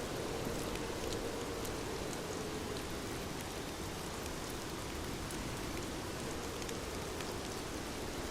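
Steady rainfall: an even hiss with scattered light ticks.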